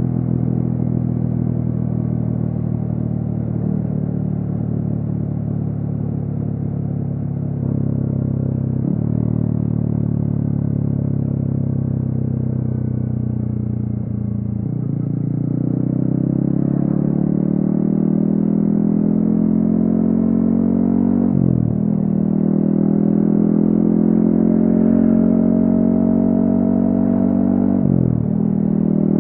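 Yamaha XSR155's single-cylinder engine through a DIY exhaust, ridden on the road. It runs at a steady pitch for the first half, then pulls harder with the pitch climbing. The climb is broken by a quick dip twice in the second half, at each upshift.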